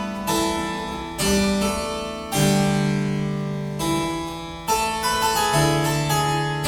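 Solo harpsichord playing slow, plucked chords, a new chord struck about every second and each left to ring and die away.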